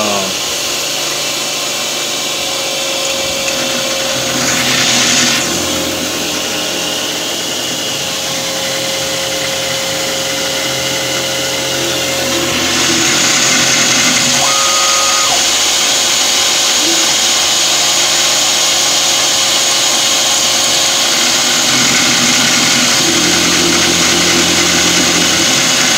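A DIY CNC-converted round-column milling machine running a program: the spindle turns and the cutter is fed through dry passes while the axis drives hum in tones that change as the moves change. About 13 s in, the sound grows louder and brighter and stays that way.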